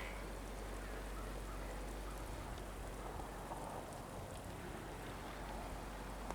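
Steady, rain-like patter and hiss of meltwater dripping from snow-laden trees and surfaces as wet, heavy snow melts.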